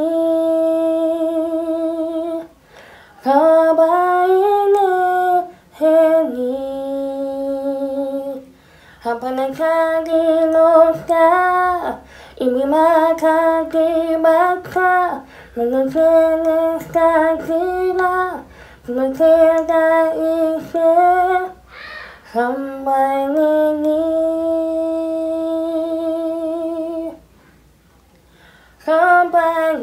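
A woman singing a slow, wordless melody, close into a small wireless microphone held at her mouth, with long held notes and short breaks between phrases.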